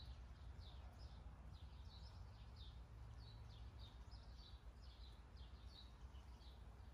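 Faint, rapid high-pitched chirps repeating about three times a second, over a steady low rumble.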